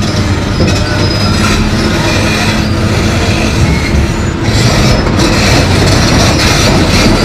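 Komatsu PC220LC excavator's steel crawler tracks clanking and squealing on the steel deck of a lowbed trailer as it crawls along, with its diesel engine running underneath. The clanks come in a steady irregular run, with high thin squeals.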